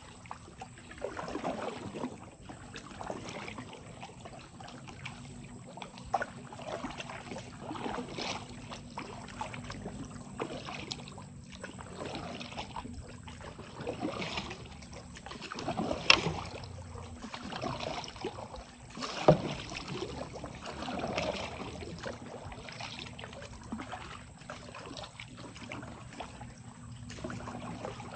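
Water splashing and sloshing in an irregular rhythm, like paddling a small boat, with two sharp knocks about three seconds apart past the middle. A faint steady high whine runs underneath.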